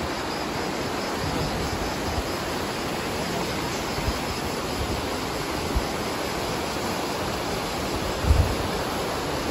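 Steady outdoor rushing noise, with a low thump of wind buffeting the microphone about eight seconds in.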